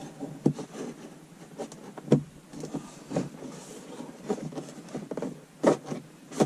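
Irregular clicks and taps of plastic as a dash cam wire is pushed into a car's interior trim with a plastic trim tool, with sharper knocks about two seconds in and near the end.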